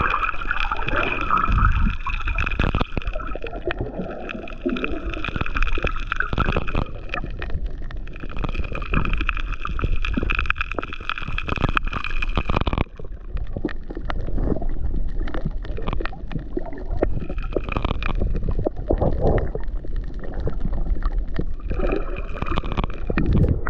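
Underwater sound picked up by an action camera while snorkeling: muffled water sloshing and gurgling around the housing, with a steady high whine that cuts off suddenly about halfway through and comes back faintly near the end.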